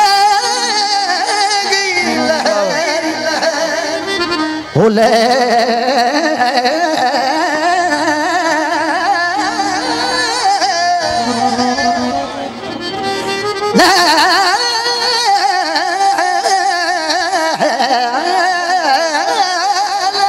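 Live Punjabi folk singing: a male singer holds long, wavering, heavily ornamented notes into a microphone over keyboard accompaniment, with fresh phrases starting about five and fourteen seconds in.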